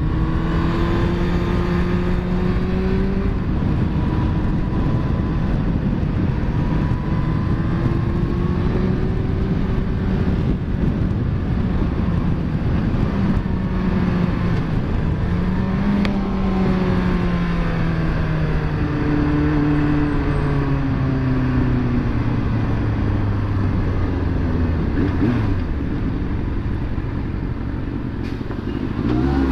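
Yamaha FZ1's inline-four engine running on the move, its note rising and falling with the throttle and sinking steadily through the middle as the bike slows, under a constant rush of wind and road noise.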